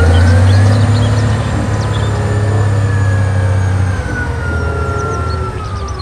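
Large rigid mining dump truck's diesel engine running hard while the dump body is raised, with a whine that rises in the first second and then slowly falls. Birds chirp in the background.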